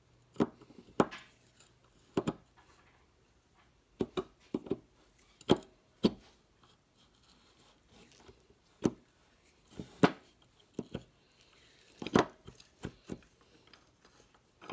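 Steel clutch plates and friction discs clicking and knocking against each other and the splined clutch drum as they are worked into place by hand in a John Deere 310D reverser forward clutch pack. The clicks come at an irregular pace, a dozen or so sharp taps with short pauses between them.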